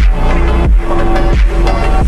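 Slowed-down phonk music: a heavy electronic beat with a deep bass note that falls in pitch about every two-thirds of a second, under a repeating synth melody.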